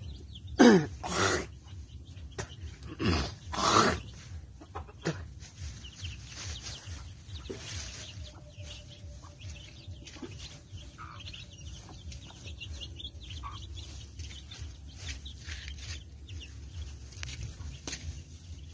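Chickens, a hen with her chicks: two loud calls, falling in pitch, in the first four seconds, then fainter scattered calls.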